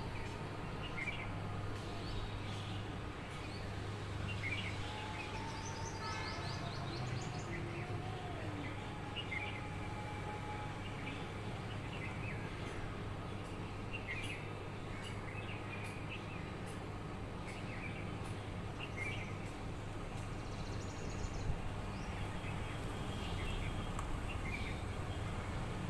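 Outdoor ambience: a steady low rumble with small birds chirping in short calls now and then, and a couple of brief higher trills.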